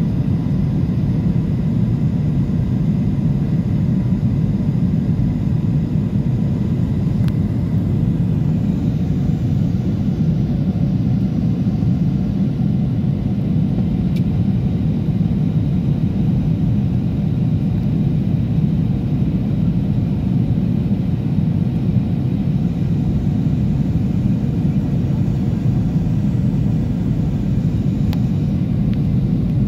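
Steady cabin noise inside a twin-jet airliner descending to land: the low rumble of the jet engines and rushing airflow. A faint high whine fades away about nine seconds in.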